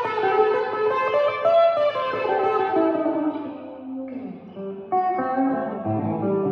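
Electric guitar played through a 1959 Gibson GA-18 Explorer valve amp with a single 10-inch Jensen P10R speaker: ringing chords and single notes, a note sliding down in pitch about four seconds in, then freshly struck chords near the end.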